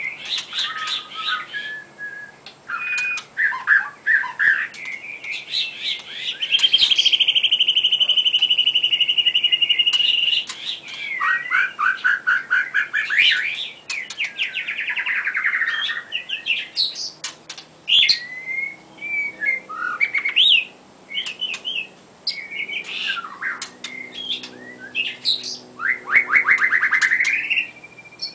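White-rumped shama singing a varied song of whistled, chirped and trilled phrases, with a long, even trill lasting about three seconds starting about seven seconds in, and fast trills later on.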